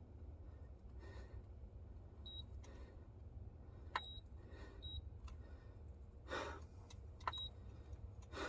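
Faint electronic beeps from a digital hanging fish scale, about four short high beeps, two of them with a click, as its button is pressed to get it reading again. A low steady hum and a brief rustle of handling lie underneath.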